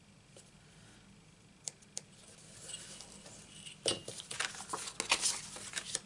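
A stainless steel ruler and sheets of card being handled on a craft mat. After a couple of light clicks, card slides and rustles, the ruler is set down with a sharp knock about four seconds in, and a run of small clicks and scrapes follows as it is positioned.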